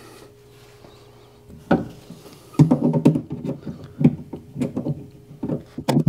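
Irregular metallic clicks, knocks and rattles of a lock cylinder retaining clip being fitted with pliers inside a pickup truck's hollow steel door. They start about a second and a half in.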